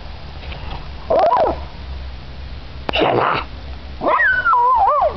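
A dog's vocal calls: a short yelp about a second in, a rough bark around three seconds in, then a longer wavering whine that slides down in pitch.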